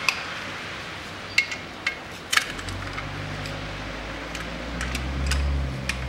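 Sharp metallic clinks and taps of hand tools and parts at the timing end of a Toyota 3S-FE engine, about nine separate clicks spread through. A low steady hum comes in about halfway and grows louder near the end.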